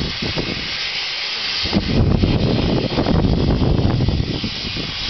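Small steam locomotive hissing steam steadily as it pulls away, with a low uneven rumble beneath that grows louder about two seconds in.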